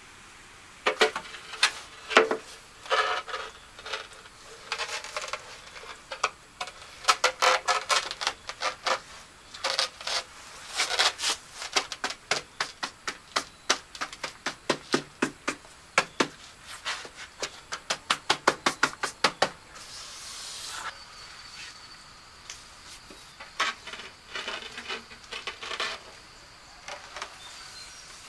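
Sharp taps and knocks of hand tools at work, irregular and often in runs of several quick strokes, with a short hiss about twenty seconds in.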